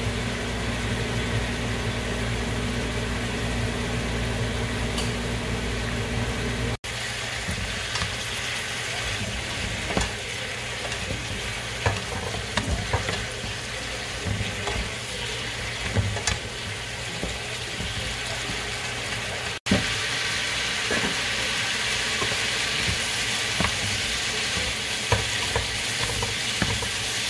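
Julienned vegetable strips stir-frying in a nonstick pan: steady sizzling with the scrapes and clicks of a wooden spatula and chopsticks turning them. A steady low hum sits under the first several seconds and stops at a cut.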